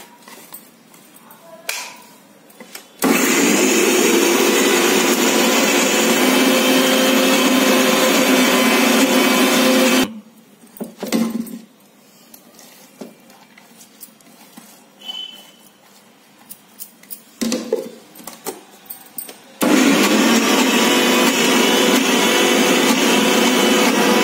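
Electric mixer grinder (mixie) grinding lentils with green chillies, onion and curry leaves into a coarse garelu batter. It runs steadily for about seven seconds and stops, then after a few clinks of the jar being handled it runs again for the last few seconds.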